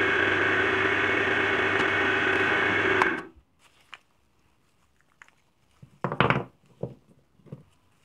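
Bench drill press running steadily with a motor hum and whine, cutting off abruptly about three seconds in. After that a few light clicks and, about six seconds in, a short clatter of PVC pipe pieces knocking together in the hands.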